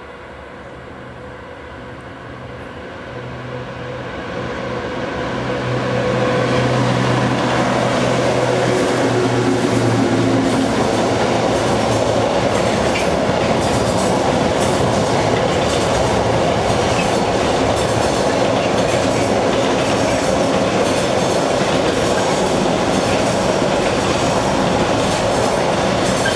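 Class 92 electric locomotive approaching with a steady hum that grows louder over the first six seconds. A long train of container wagons then runs past, with a continuous rumble and the clickety-clack of wheels over rail joints.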